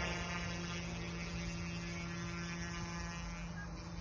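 Small OMP M1 EVO electric RC helicopter in flight, its motor and spinning rotor blades making a steady, even hum.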